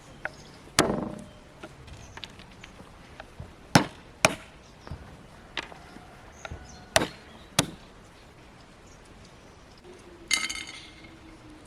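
Sharp knocks of kitchen work, several coming in pairs about half a second apart, then a ringing clink near the end.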